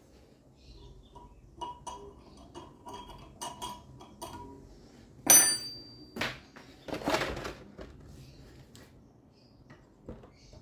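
Metal clinking and tapping: small ringing taps, then one sharp ringing metal strike a little past five seconds in, the loudest sound. Duller knocks and a short rustle follow.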